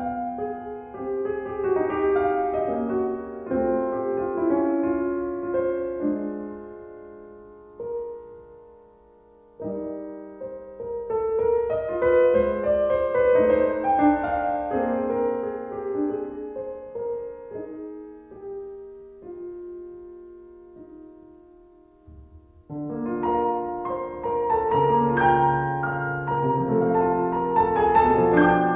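Background piano music: gentle phrases that die away twice, about nine seconds in and again about twenty-two seconds in, then a fuller passage.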